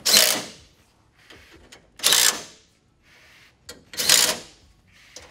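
Cordless impact driver with a 10 mm socket running in three short bursts, about half a second each and roughly two seconds apart, snugging up a grille's top bolts.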